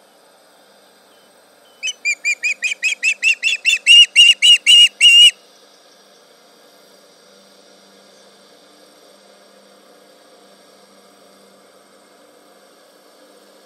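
Osprey calling: a run of about fifteen sharp whistled notes, about four a second, growing louder over a few seconds and then stopping abruptly.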